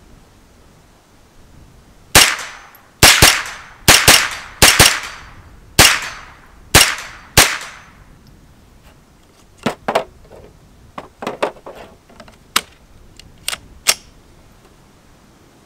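CZ Scorpion EVO 3 S1 carbine in .22 LR firing about ten semi-automatic shots over roughly five seconds, some in quick pairs. These are followed by a run of quieter sharp clicks and knocks.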